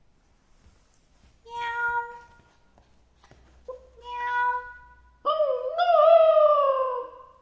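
Three cat meows. The first two are short and hold a steady pitch; the third, a little after five seconds in, is the longest and loudest, wavering in pitch as it falls away.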